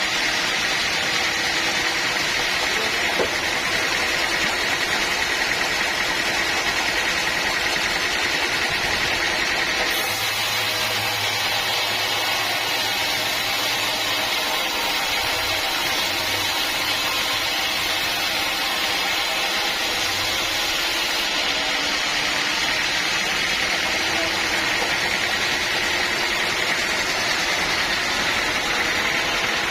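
Sawmill running with a steady, unbroken mechanical noise. Its tone shifts slightly about ten seconds in and again past twenty seconds.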